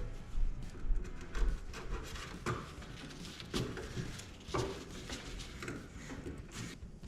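Scattered knocks, clicks and rubbing from hands handling parts, with several sharper knocks in the middle, over background music.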